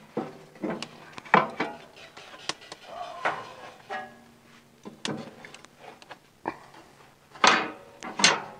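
Cast-iron cooking grates of a Char-Griller AKORN kamado grill being set into place and shifted by a gloved hand, metal clanking and scraping on metal. A string of sharp clanks, the two loudest near the end.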